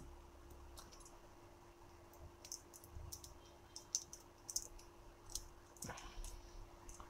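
Faint, irregular small clicks and taps of hand tools working on the opened smartwatch's small parts, with a soft knock near the end.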